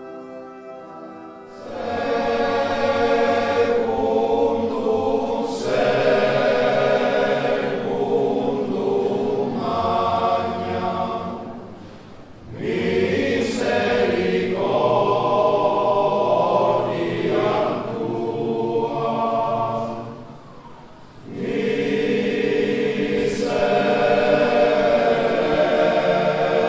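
Soft music gives way about a second and a half in to a choir singing a slow, solemn chant in three long phrases, each separated by a short breath-pause.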